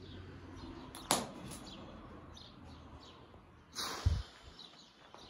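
Two sharp knocks or cracks from moving over rubble and broken boards on a derelict floor, one about a second in and a louder one near four seconds followed by a short deep thump, over a faint background.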